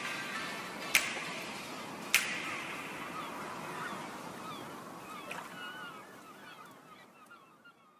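Background music fading out: two sharp percussive hits about a second apart, then a dying tail with short chirping glides that fades to nothing near the end.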